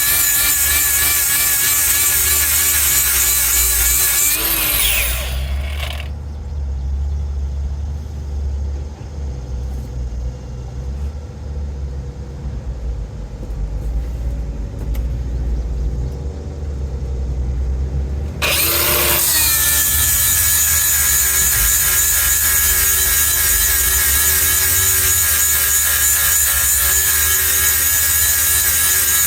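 Power grinder sharpening the steel cutter teeth on a Bandit Beast 4680 grinder's drum, a loud grinding hiss with a wavering whine. It stops about six seconds in, leaving a low rumble, and spins back up near the two-thirds mark to grind steadily again.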